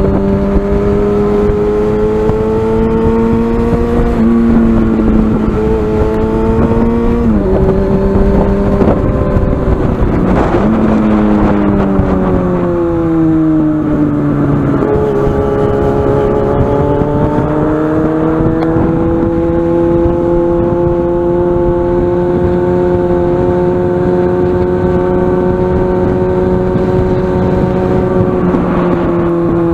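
Yamaha FZ6N's inline-four engine through a carbon-fibre exhaust, heard onboard while riding. The engine note climbs and drops back several times as the rider shifts, eases off and falls in the middle, then pulls up again and holds a steady cruise. A low wind rumble sits underneath.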